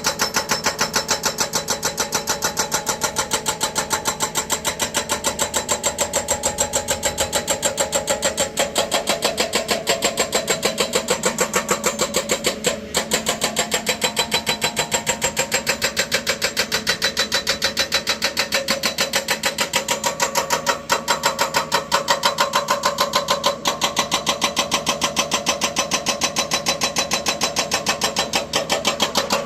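Tracked excavator working, a steady mechanical sound with a rapid, even pulsing.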